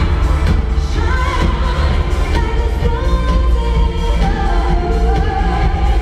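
Female singer singing live into a microphone over a pop backing band with a heavy bass, as one continuous melodic line.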